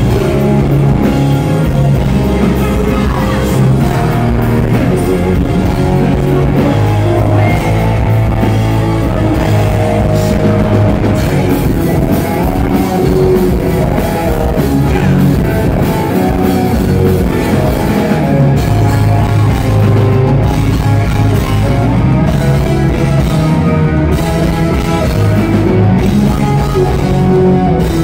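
Hard rock band playing live and loud through a concert PA: male lead vocals over electric guitar and drums.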